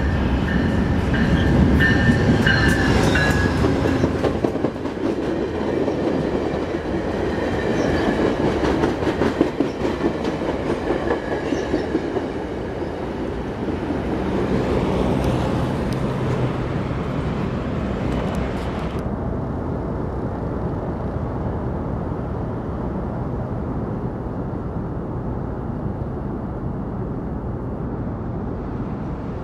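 GO Transit commuter train led by locomotive 900 passing through the station, its wheels clattering over the rail joints with a heavy rumble. About two-thirds of the way through, the higher sound cuts off suddenly and a steadier, lower rumble continues.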